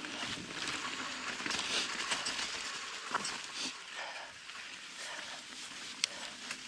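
A mountain biker's heavy breathing from exertion, a run of irregular hard breaths over trail noise, with one sharp click near the end.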